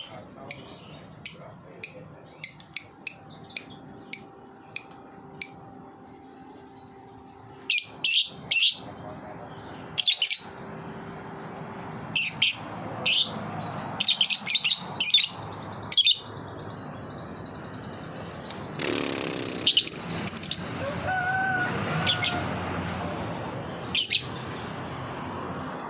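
Lovebird chirping in short, sharp, high calls: single chirps about every half second at first, then rapid clusters of chirps, the 'ngetik' (typing-like) chatter that lovebird keepers play as a lure to set other birds singing.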